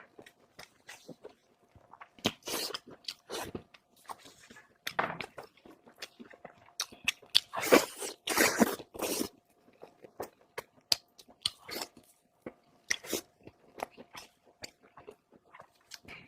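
Close-miked mukbang eating: irregular bites and wet chewing of pork, with crunchy cartilage bites. The loudest run of chewing comes about halfway through.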